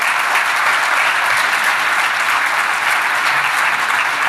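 Conference audience applauding steadily, a dense even clapping from a large hall crowd.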